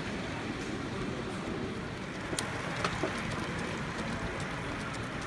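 Model train running on an exhibition layout, heard as a steady hum and rumble over hall ambience, with two sharp clicks about half a second apart around two and a half seconds in.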